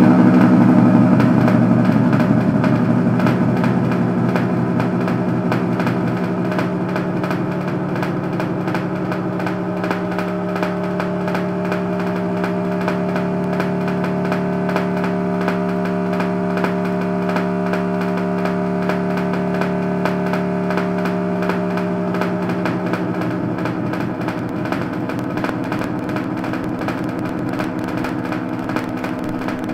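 A steady buzzing drone holding several pitches at once, easing down in loudness over the first few seconds and then holding.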